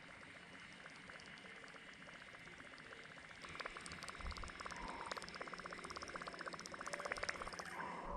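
Fishing reel being cranked during a lure retrieve: a rapid, even ticking that starts a few seconds in and grows louder.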